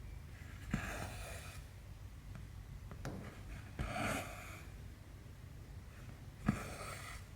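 Needle and embroidery floss passing through cross-stitch canvas: three stitches about three seconds apart, each a short tick of the needle followed by a brief rasp of the thread being drawn through.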